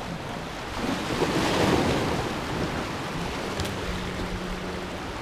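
Sea waves washing over shoreline rocks, with one louder surge about a second and a half in. Wind buffets the microphone.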